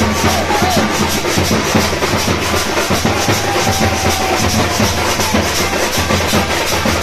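Loud drum-led music with many dense drum strokes and no break.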